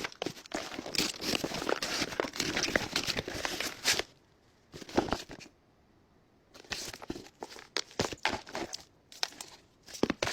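Packaging being handled and opened: crinkling and rustling with some tearing. The sound is dense for the first few seconds, pauses briefly twice with a short burst between the pauses, then turns into scattered crinkles.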